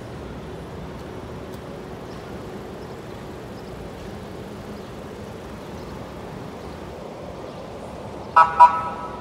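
City street traffic noise, with a vehicle horn giving two short honks near the end.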